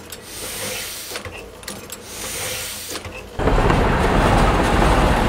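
Newspaper printing press running, a mechanical clatter with light clicks. About three seconds in it gives way to a louder, steady rumbling noise.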